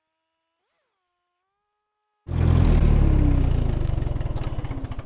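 Near silence, then about two seconds in the Ditch Witch R65 trencher's engine cuts in abruptly, running loud with a rapid firing beat, and eases off gradually with its pitch falling slightly.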